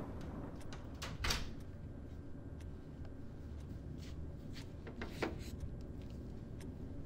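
A person moving about and handling things: a few soft knocks and clicks, the loudest about a second in and another about five seconds in, over a low steady room rumble.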